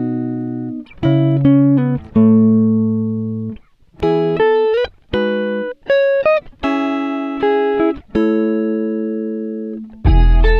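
Background music: plucked guitar notes and chords, each ringing and fading. A deep bass part comes in near the end.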